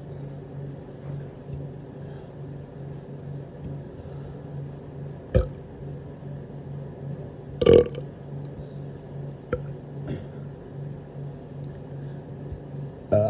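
A person burping several times in short bursts, the loudest a little past halfway and another right at the end. Underneath is a steady low hum that pulses about twice a second.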